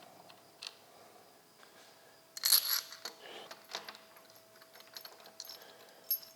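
Small metal parts and tools clinking and clicking while a handlebar bar-extender mount and its bolt are fitted. The loudest is a short cluster of metallic clinks about two and a half seconds in, with lighter scattered clicks after it.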